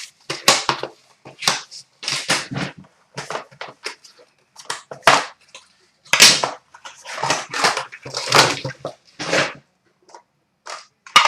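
Plastic shrink wrap and card-box packaging being torn open and crinkled by hand, in a quick irregular run of short crackling rips.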